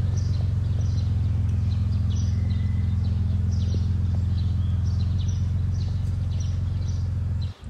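Birds chirping repeatedly over a loud, steady low hum that cuts in and out abruptly.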